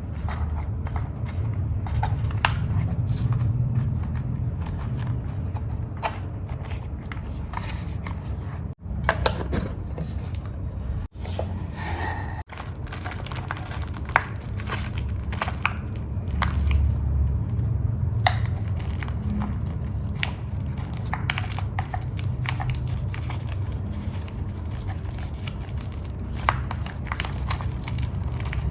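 Close-up handling of paper and journaling materials: rustling, crinkling and scattered light taps and scratches, with a steady low hum underneath. The sound drops out briefly three times in the middle, at edit cuts.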